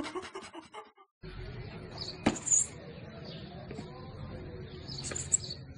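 Open-air background noise with a sharp knock about two seconds in and a few high bird chirps, after the tail of a man's speech in the first second.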